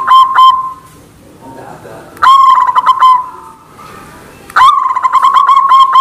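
White zebra dove (perkutut) cooing in rapid repeated notes, about four a second over a held tone: one phrase breaks off about half a second in, a short phrase follows about two seconds in, and a new run of notes starts near the end.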